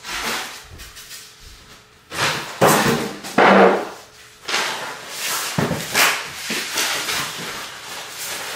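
A series of knocks and rustling from things being handled, about one every second, loudest around three seconds in.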